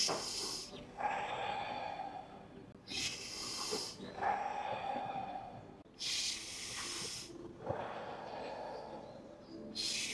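A person breathing deeply and audibly in a paced breathing exercise: a sharp, hissing breath alternating with a longer, lower, airy breath, repeating about every three seconds.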